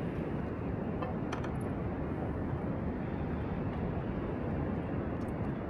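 Steady rushing of wind and sea swell on an open pier, with a few faint clicks about a second in.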